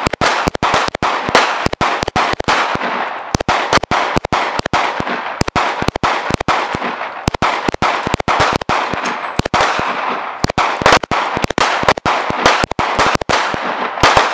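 Handgun fired in rapid strings, several shots a second with a few short breaks, each crack trailing a short echo.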